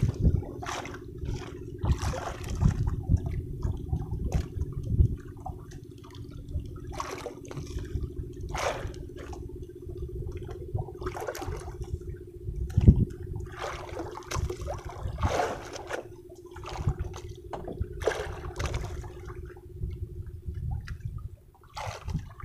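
Sea water splashing and sloshing against the hull of a small wooden fishing boat in irregular washes, over a steady hum from the boat's diesel engine.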